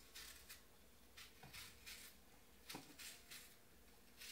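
Faint, short scraping strokes of a kitchen knife peeling the skin off a green apple, about two a second.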